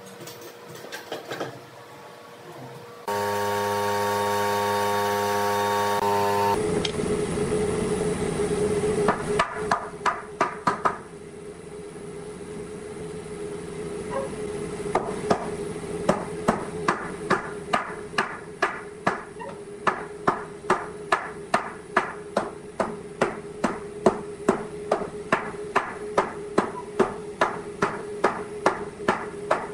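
Wooden mallet striking a pine frame joint, knocking the diagonal leg into the base rail with steady blows about two a second. A steady held tone sounds for about three seconds a few seconds in, before the knocking starts.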